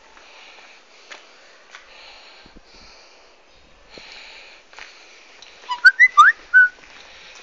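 A person whistling a short, loud phrase of about five quick notes sliding up and down, about six seconds in. Faint crunching steps and rustle over debris come before it.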